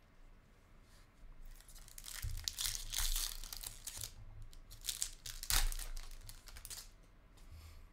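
A foil trading-card pack being torn open and crinkled by hand, in crackling bursts: a long stretch of tearing and rustling starting about a second and a half in, and another short burst a little over halfway through.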